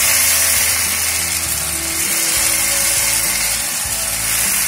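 Semolina-and-curd batter sizzling steadily in hot oil on a tawa as it is ladled on, a loud continuous hiss.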